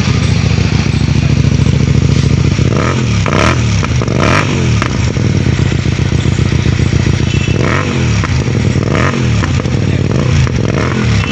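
Hyosung GTR 250 V-twin through an aftermarket IXIL exhaust, idling and then revved in several short throttle blips that rise and fall back to idle.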